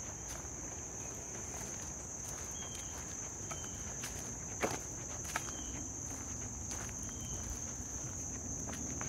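Footsteps on a dirt track scattered with dry leaves, with a couple of sharper clicks about halfway through, over a steady high-pitched chorus of insects.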